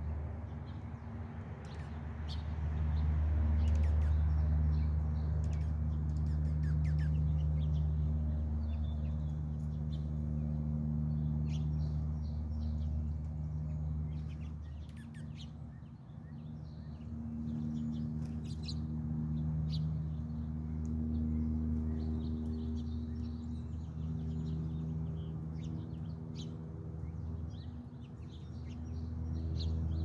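Small songbirds chirping in short, scattered calls over a louder low droning hum that swells and fades every few seconds.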